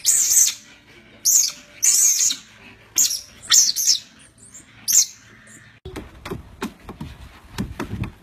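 A run of about six short, shrill, high-pitched chirping calls from small furry animals. About six seconds in, they give way to a quick series of sharp clicks and scrapes.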